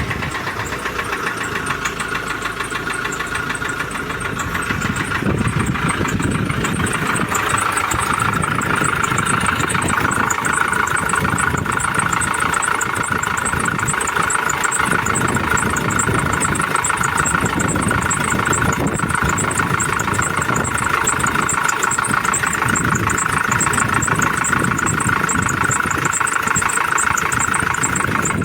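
Ford Transit van's diesel engine idling just after starting, with a loud, rough clattering knock from the top of the engine. The mechanic suspects a leaking injector seal washer, or possibly a faulty rocker.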